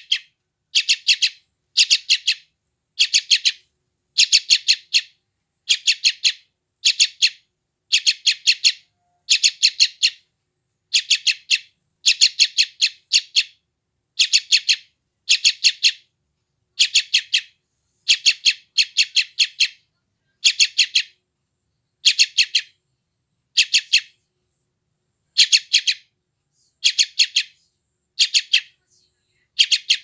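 Young yellow-vented bulbul (trucukan) chick giving rapid, high chattering calls, short bursts repeated about once a second, some in quick pairs.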